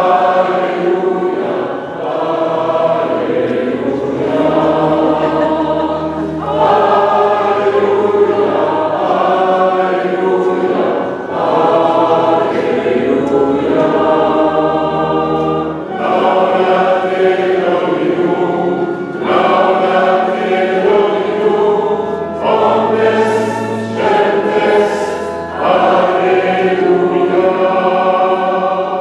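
A congregation singing a hymn together, led by a female cantor, over an organ holding long bass notes that change every several seconds.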